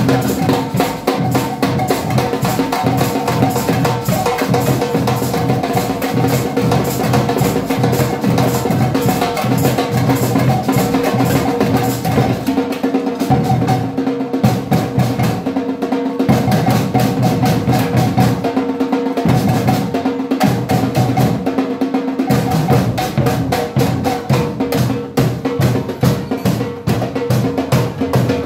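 Samba percussion band playing a steady, fast groove on bass drums, snare drums, a red hand drum and congas. Between about 12 and 22 seconds in, the low bass drums drop out several times in short breaks while the other drums keep going.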